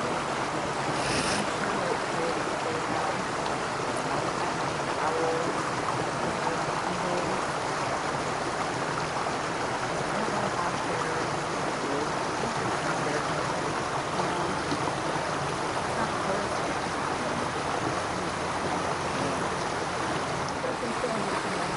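Shallow creek water running steadily over gravel and rocks, a continuous even rush.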